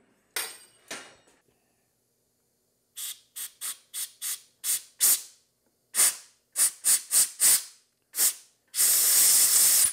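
Compressed-air blow gun hissing in about a dozen short puffs, then one longer blast of about a second near the end, blowing metal chips out of a freshly drilled and tapped bolt hole.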